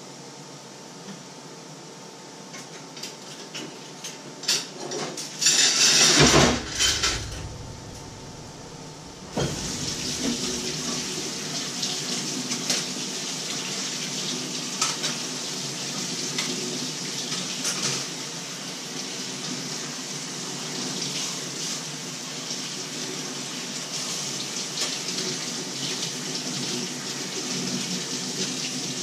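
Kitchen tap running steadily into a sink from about nine seconds in, with dishes clinking now and then as they are washed. Before it, scattered clinks of dishes and a brief loud rush about six seconds in.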